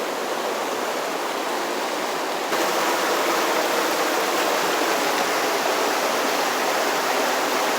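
Steady rush of a swollen, fast-flowing flood river running high after heavy rains; it gets suddenly louder about two and a half seconds in.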